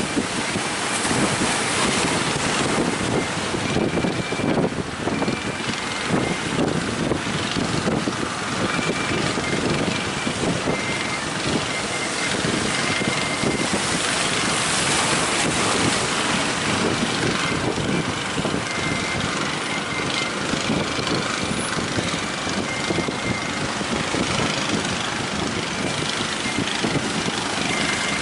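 Strong wind buffeting the microphone over the surf, with a motor running steadily underneath.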